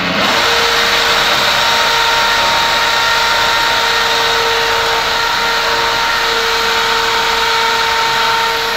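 Cordless drill running steadily under load, boring into the plastered masonry jamb of a window opening, with a constant whine over the grinding of the bit.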